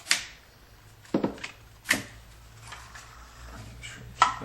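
Several sharp plastic clicks as wiring connectors are popped off and unplugged from the door handle trim, spread over a few seconds with quiet handling noise between them.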